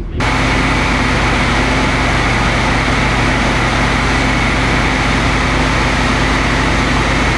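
Honda Civic Type R's turbocharged 2.0-litre four-cylinder running at a steady speed on a Dynapack hub dyno: a loud, even drone that holds its pitch.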